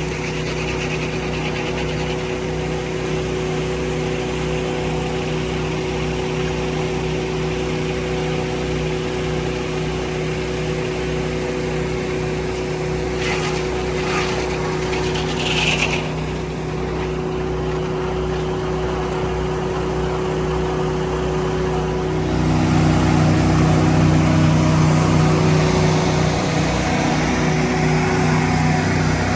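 Sawmill's engine running steadily while milling a cedar log. About two-thirds of the way in, its note changes and grows louder.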